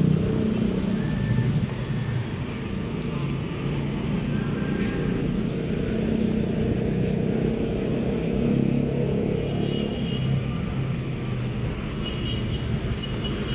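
Steady low rumble of city road traffic, with a few faint high tones near the end.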